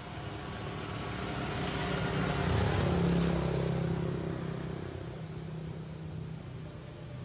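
A motor vehicle passing by: its engine grows louder to a peak about three seconds in, then fades away.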